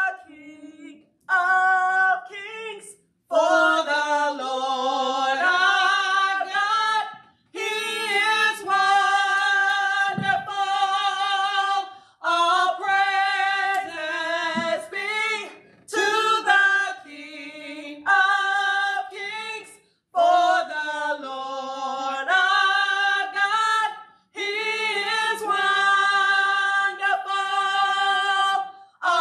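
A small church choir of women's and men's voices singing together, in phrases a few seconds long separated by short pauses.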